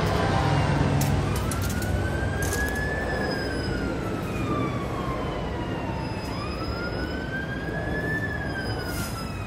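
Police siren in a slow wail, rising and falling twice, over a steady low rumble of vehicles.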